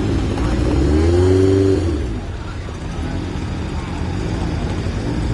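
Citroën DS station wagon's four-cylinder engine running as the car drives slowly past, rising in pitch about a second in and settling back down after a second or so.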